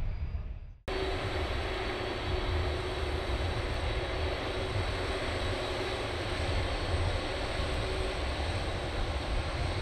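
Jet engines of a TUI Airways twin-engine airliner running at taxi power as it rolls past close by: a steady rush with a low rumble, an even hum and a thin high whine. It starts abruptly about a second in, after a brief fade to silence.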